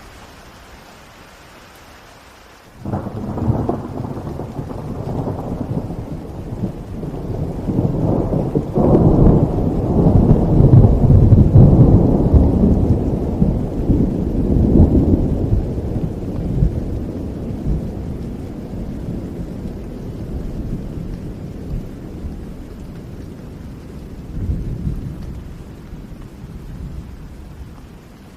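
Steady rain, with a thunderclap that breaks about three seconds in. It rolls into a long, low rumble that swells, then slowly dies away over some twenty seconds, with a smaller rise near the end.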